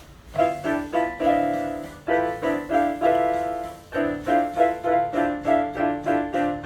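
Instrumental break of a gospel song: piano-sounding keyboard playing a repeated chord pattern, about three chords a second, over soft low bass notes.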